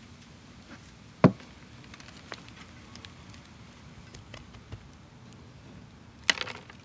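Hands packing bark-and-peat potting mix into a plastic Rootmaker pot: a sharp knock about a second in, faint ticks and rustles of soil, and another knock with a short rustle near the end.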